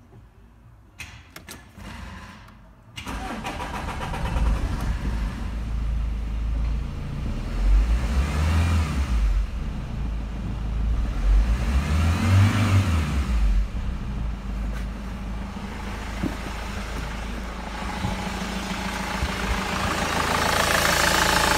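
Opel Movano's 2.5-litre G9U turbodiesel engine starting about three seconds in and idling, revved up and back down twice, and louder near the end.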